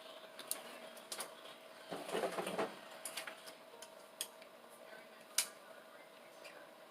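Small clicks and taps of hands fitting a water hose onto a washing machine's new inlet valve, with a short scraping rustle about two seconds in and a sharp click about five seconds in.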